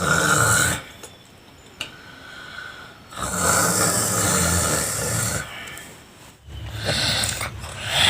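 Young child snoring loudly in sleep: three long, rasping snores, the middle one the longest.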